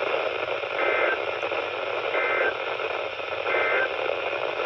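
NOAA Weather Radio receiver sounding three short SAME digital data bursts about a second apart, the end-of-message code that closes an EAS alert, over a steady hiss of radio static.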